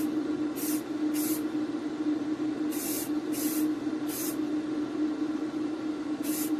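Aerosol spray paint can giving six short squirts of yellow gloss, light coats being built up on a die-cast model car body, over the steady hum of an electric fan.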